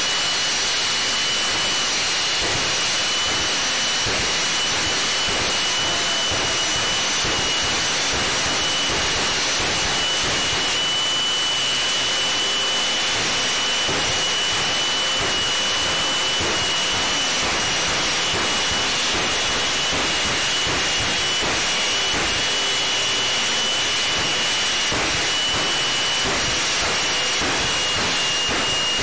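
Jet funny cars' jet engines running: a loud, continuous rushing hiss with a steady high whine over it.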